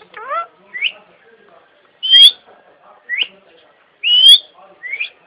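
Green parrot giving short, rising whistled chirps, about six in all, with two loud, shrill calls about two and four seconds in.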